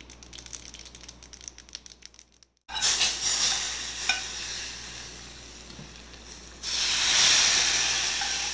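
Hot oil tempering of mustard seeds, asafoetida, dried red chillies and curry leaves crackling, then sizzling loudly as it is tipped into a pot of pumpkin curry. The sizzle starts just under three seconds in, eases off, and flares up again about seven seconds in.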